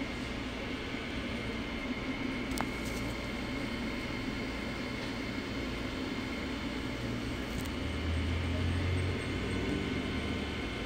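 Steady low rumbling background noise with a faint hum, swelling slightly near the end, and a couple of faint clicks.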